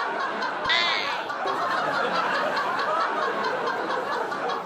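Several people laughing and chuckling over a dense murmur of voices, with one brief, higher-pitched laugh or cry about a second in.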